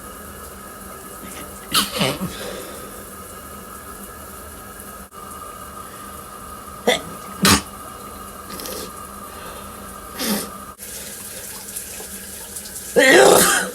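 A person sneezing: several short stifled sneezes, two of them in quick succession, then one full, loud sneeze near the end.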